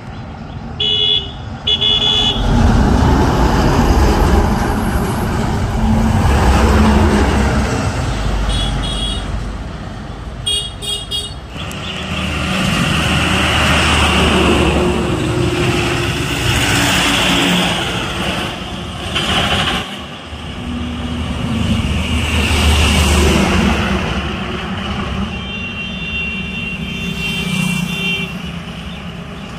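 Heavy goods trucks passing on a highway one after another, their diesel engines and tyres swelling loud and fading as each goes by. A few short horn toots come in the first seconds and around the middle, and a longer multi-tone horn sounds near the end.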